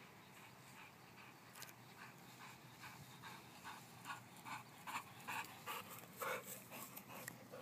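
A German Shorthaired Pointer panting in quick, rhythmic breaths, about three a second, getting louder over the last few seconds.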